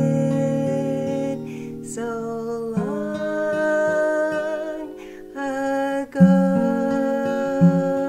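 A woman singing a Christmas gospel song in long held notes over instrumental accompaniment, with a few short breaths between the notes.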